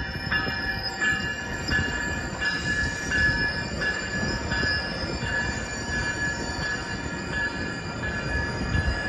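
A North County Transit District Coaster commuter train's coaches roll through a railroad grade crossing with a steady rumble of wheels on rails. The crossing-signal bells ring over it in a steady repeating rhythm.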